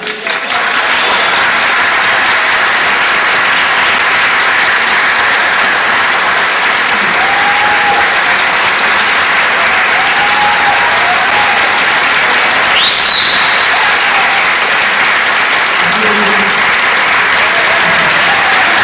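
Audience applauding steadily in a hall, with a short rising whistle about two-thirds of the way through.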